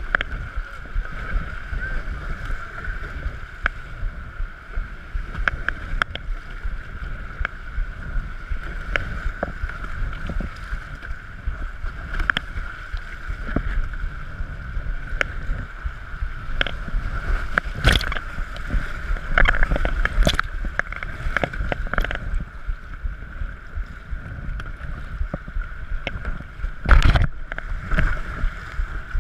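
Whitewater rapid rushing around a kayak, with the paddle blades splashing in repeatedly and water slapping the deck, and wind rumbling on the microphone. A louder splash comes near the end.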